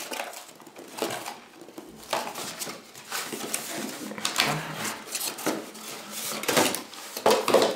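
Hands handling a cardboard box and reaching inside it: irregular rustling and scraping of cardboard with a few light knocks.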